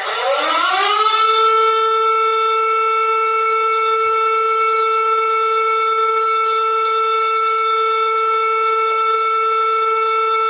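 Electronic emergency-alert alarm tone: a single buzzy note that slides up in pitch over the first second, then holds steady at one pitch.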